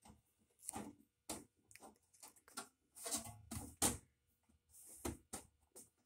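Scattered light clicks, taps and scrapes of a galvanized sheet-metal duct transition being handled and shifted into position on top of a microwave, with a few louder knocks about three to four seconds in.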